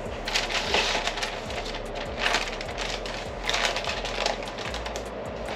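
Parchment paper crinkling and rustling in three or four short bursts as it is handled, carrying a raw meatloaf, over a steady low hum.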